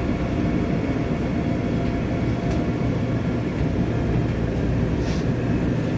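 Seoul Metro Line 9 subway car running through a tunnel, heard from inside the carriage: a steady low rumble of wheels on rails, with a couple of faint clicks.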